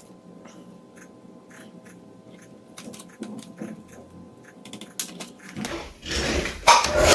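Light plastic clicks and taps of a laptop's ribbon-cable connector and case parts being worked by hand, over a faint steady hum. Near the end, louder clattering and rustling as the laptop keyboard is handled, with a sharp knock.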